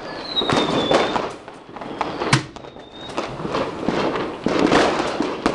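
Fireworks going off, a dense run of rapid pops and crackles. A falling whistle sounds at the start and one sharper bang comes a little over two seconds in.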